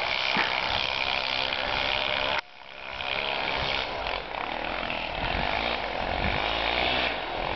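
Honda 400EX quad's single-cylinder four-stroke engine running hard and revving as it is ridden, with a sudden dip about two and a half seconds in before it builds again.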